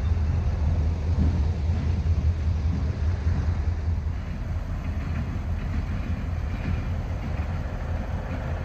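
Diesel freight train with covered hopper cars, a steady low rumble, with faint high whines joining about halfway through.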